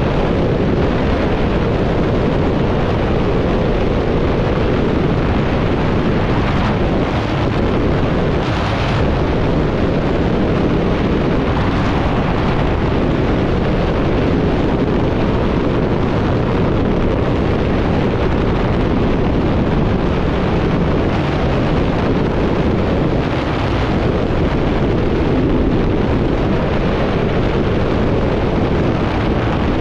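Loud, steady rush of freefall wind over a skydiving camera's microphone, with a few brief sharper gusts in the first half.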